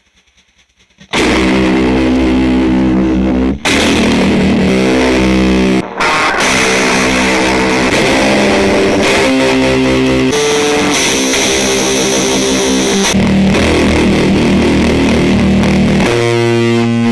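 Electric guitar played through an EarthQuaker Devices Fuzz Master General fuzz pedal into a Fender Deluxe Reverb amp: heavily fuzzed, sustained chords and notes that start about a second in, with two brief breaks between phrases.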